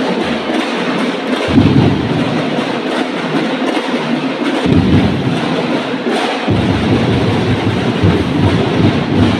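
Drum-and-percussion band with big bass drums playing a loud, driving dance beat, heard as a dense, rumbling wash of drumming. The deep bass drops out and comes back in a few times.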